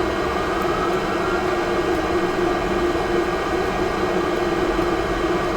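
Steady whir of a small fan motor with a constant low hum, unchanging throughout.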